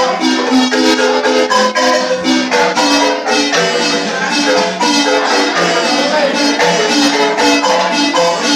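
Wooden marimba played live by two players: a continuous tune of quick mallet strokes over lower bass notes.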